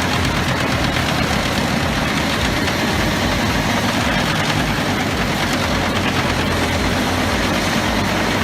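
A heavy machine's engine running steadily at a constant level, with a pulsing low rumble under a dense mechanical noise.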